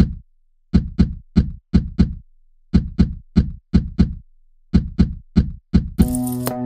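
Song playback of a programmed beat: short, deep knocking percussion hits in a repeating pattern of about five per two-second bar. About six seconds in, sustained pitched chords and busier music come in over the beat.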